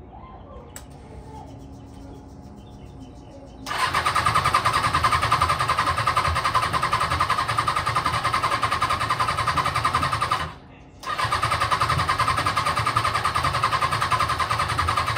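Sport motorcycle's electric starter cranking the engine over without it catching, a steady rapid churning in two long bursts with a brief pause between them about ten and a half seconds in. The bike has sat uncovered for a year and has water in it, and the cranking is to turn it over and push the water out.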